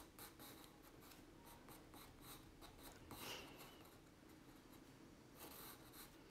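Faint scratching of a graphite pencil drawing on cold-pressed watercolour paper, in quick short strokes that come in small bursts.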